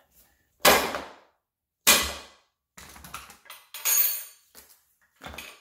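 Metal tools knocking and clanking against a Honda PL3 manual transmission while prying out its seized speedometer gear: two sharp, loud knocks with a short ring, then lighter clicks and a ringing metal clank about four seconds in.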